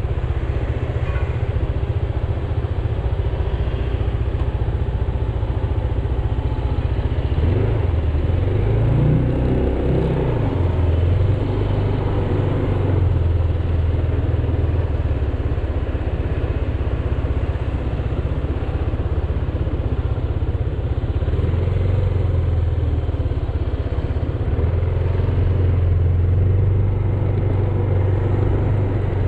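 Scooter engine running as the scooter rides off, with road and wind noise. About eight to eleven seconds in the engine pitch rises and falls with the throttle, then settles into a steady run.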